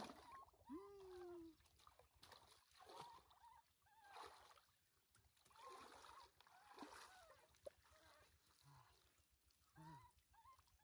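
Near silence, with a few faint pitched calls scattered through it, the clearest about a second in.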